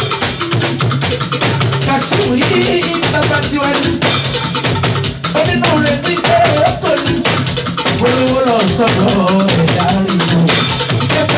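Loud party music with a drum kit, bass drum and shakers keeping a steady beat, and a man singing over it into a microphone.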